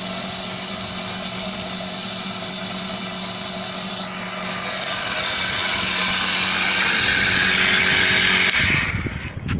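Modified electric backpack sprayer pump running steadily, a hum under a loud high hiss, as it pumps into a sealed plastic water bottle through its spray lance to build pressure. It cuts off suddenly near the end, followed by a few handling knocks.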